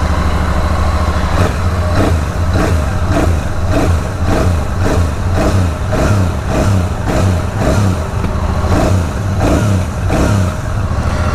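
Royal Enfield 650 parallel-twin engine idling through its stock exhaust. From about a second and a half in it is given light, quick throttle blips about twice a second, kept gentle because the engine is new and not yet run in.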